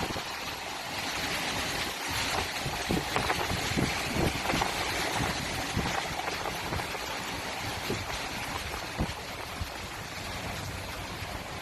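Steady rushing noise of storm wind, with a few faint knocks scattered through it.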